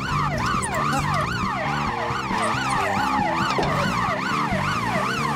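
Electronic alarm siren warbling rapidly up and down, about three sweeps a second. It is the alarm set off by the cash machine being tampered with and pulled from the wall.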